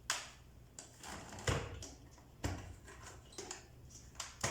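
Handling noises from the opened drum vacuum cleaner: a few hard plastic knocks, the clearest about one and a half and two and a half seconds in, between quiet rubbing.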